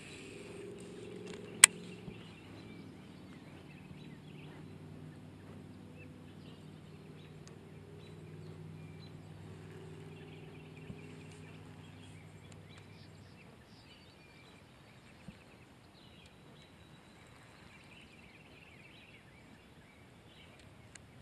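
Quiet outdoor ambience with faint birds calling and a low steady hum that fades out about two-thirds of the way through. A single sharp, loud click comes about a second and a half in.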